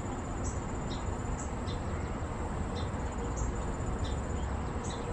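Summer outdoor ambience: a steady high-pitched insect drone with short, high chirps that drop slightly in pitch, repeating about once a second, over a low background rumble.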